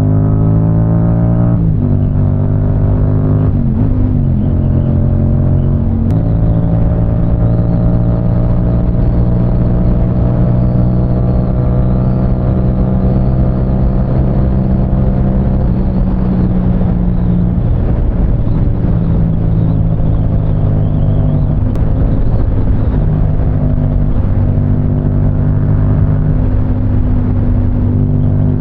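Yamaha R7's parallel-twin engine accelerating through the gears, its pitch rising and then dropping at a shift about one and a half seconds in and again near four seconds. After that it runs at steady freeway revs, with small rises and dips in pitch.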